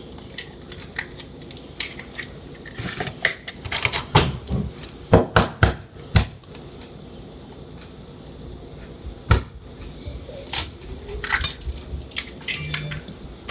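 Eggs being cracked against a bowl: a series of sharp taps and knocks, irregularly spaced, with kitchen utensils clinking between them.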